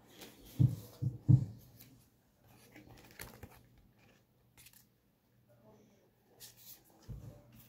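Three dull low thumps close together near the start, then scattered crinkling and tearing of foil booster-pack wrappers being opened by hand, with two more thumps near the end.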